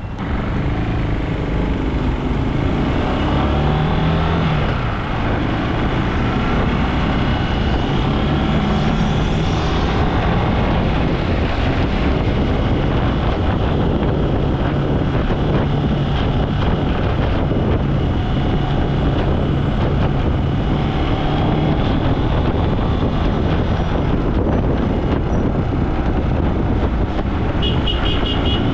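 Gatoma 200 motorbike's engine rising in pitch as it pulls away over the first few seconds, then running steadily under a constant rush of road noise.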